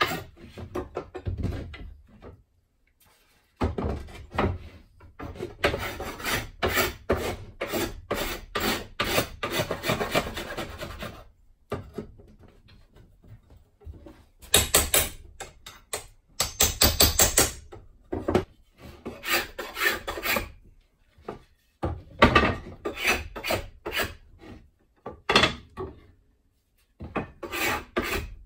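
Small flat bar (hive-tool type), its edge sharpened and used as a scraper, scraping old glue residue and stuck bits of wood off wooden strips: runs of quick rasping strokes with short pauses between.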